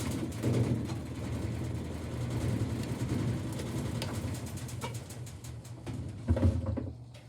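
Washing machine running with rocks loaded in its drum: a steady motor hum under irregular knocking and rattling of rocks, with louder bangs about half a second in and again near the end.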